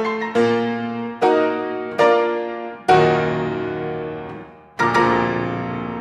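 Solo piano playing a slow passage of full chords, each struck and left to ring. Four chords come about a second apart, the one near three seconds the loudest, then it dies away before a last chord about five seconds in rings on.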